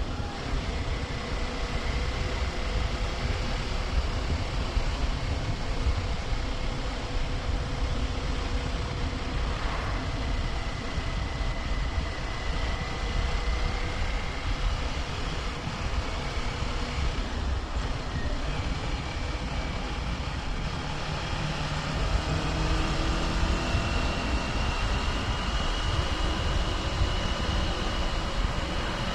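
Kawasaki Ninja 400 parallel-twin engine running at a steady cruise under heavy wind rush on the camera microphone. A little after twenty seconds in, the engine note and loudness rise slightly.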